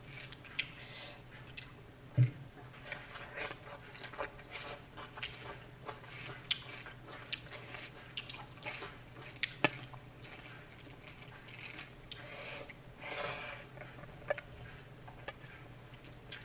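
Kitchen food-preparation handling: irregular clicks, taps and rustles of utensils and ingredients being handled, with one sharp knock about two seconds in, over a faint steady hum.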